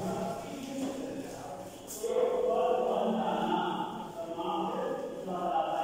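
Singing voices in long held, chant-like notes.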